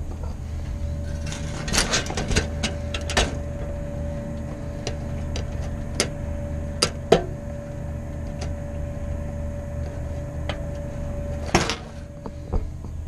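Steady drone of a dive boat's machinery: a low hum with a couple of steady higher tones. Scattered clicks and knocks sound over it, the loudest near the end, and the higher tone cuts off shortly after.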